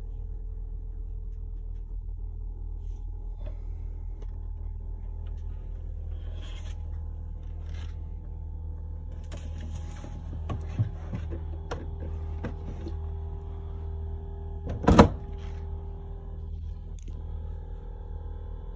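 A steady low mechanical hum, with scattered knocks and clicks of handling and movement. About fifteen seconds in there is a single sharp bang, the loudest sound, like a hatch or door being shut.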